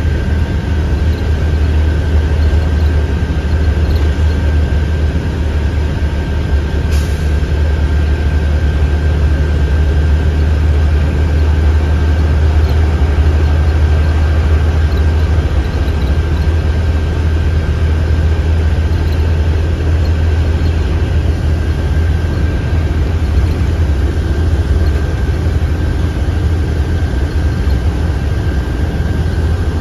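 Interior running noise of a 2017 IC CE school bus cruising at highway speed: a steady low drone of engine and road noise, with a faint steady high whine above it.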